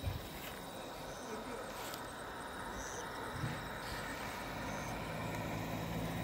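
Vehicle on the road approaching: its engine hum grows steadily louder through the second half, over a steady high tone. There is a brief low thump at the start and another about three and a half seconds in.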